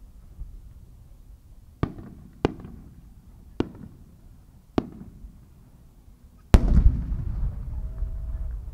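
Four sharp firework cracks about a second apart, then a heavy boom about six and a half seconds in that rolls on in a long echo: a No. 10 (ten-inch) aerial shell bursting into a changing peony.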